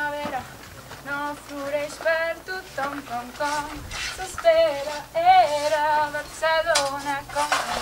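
A woman singing a wavering melody over steady low accompanying notes, as in a song, with a few brief scraping noises mixed in.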